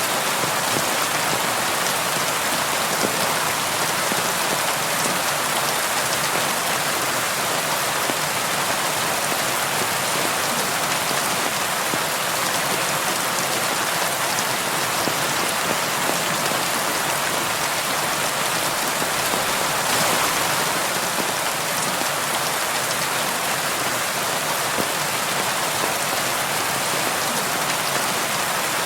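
Heavy rain falling steadily, a dense even patter of drops on a surface.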